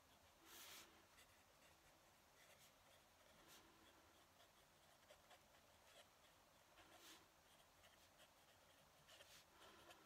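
Fountain pen nib scratching faintly across a paper pad in short handwriting strokes, the strongest about half a second in and again around seven and nine seconds in.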